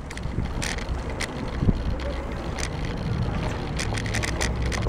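Ride noise from a bicycle on paving stones: a low rumble of tyres and wind on the microphone, with scattered rattles and clicks from the bike.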